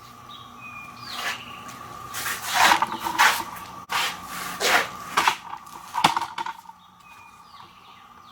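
Power steering pump being handled and fitted back into place in the car: a run of scrapes, rubs and knocks, loudest around the middle, over a faint steady tone.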